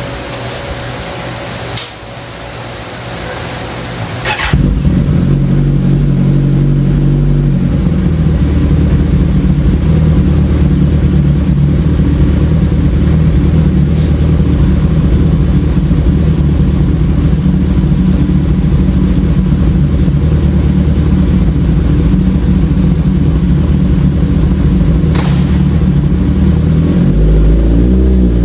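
2013 Kawasaki ZX-14R's 1441 cc inline-four engine running on a motorcycle dyno. At first there is a steady hiss; about four and a half seconds in the engine comes in loudly and holds a steady speed for over twenty seconds. Near the end its pitch starts to climb as the throttle opens for the dyno pull.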